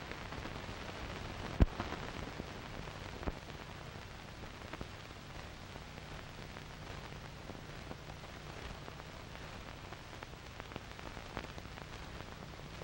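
Surface noise of an old optical film soundtrack: a steady hiss and crackle with a faint low hum and scattered sharp pops, the loudest about one and a half seconds in.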